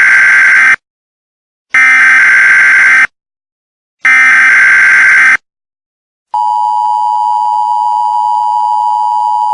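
Emergency Alert System activation: three harsh bursts of digital header data about a second apart, then the steady two-tone EAS attention signal starting about six seconds in.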